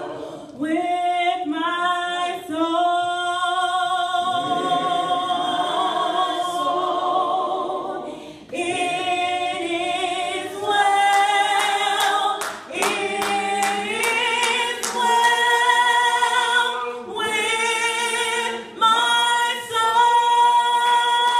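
A woman singing unaccompanied into a microphone, a slow song with long held notes and no instruments.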